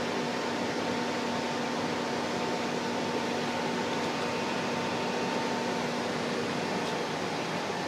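Steady mechanical running noise with a faint hum that fades out about six seconds in.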